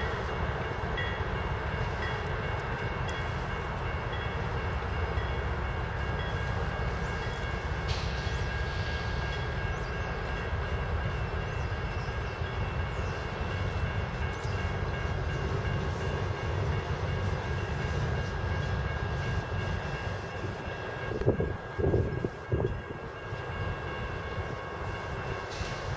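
Diesel freight locomotives approaching from a distance, their engines a steady low rumble with faint steady tones above it. A few brief louder sounds come close together about 21 to 23 seconds in.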